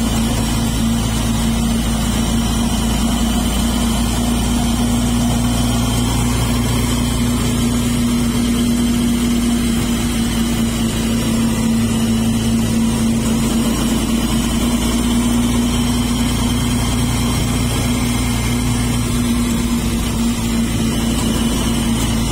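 A motor vehicle's engine running at a steady pitch while driving along a road, with no pauses or changes in speed.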